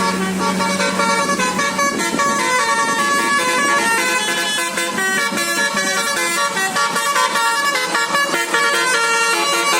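A bus's basuri telolet musical air horn playing a fast melody, one short note stepping to the next without a break.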